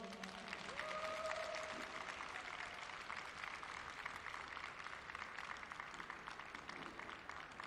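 Audience applauding, easing off slightly near the end, with one drawn-out call from a spectator about a second in.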